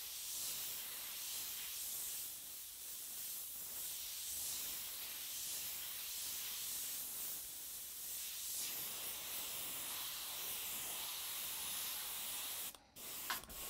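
Badger RK Chrome airbrush spraying, a steady hiss of air. The hiss cuts out for a moment near the end.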